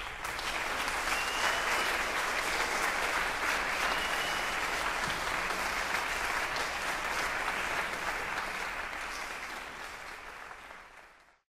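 Audience applauding just after a concert band's final chord, a steady dense clapping that tapers near the end and then cuts off abruptly.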